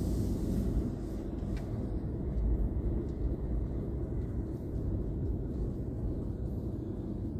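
Steady low rumble of a car's engine and tyres, heard from inside the cabin as it drives.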